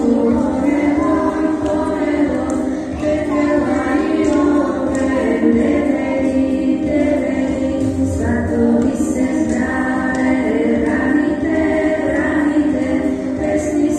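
A song sung by a choir to instrumental backing, carrying on steadily as dance music.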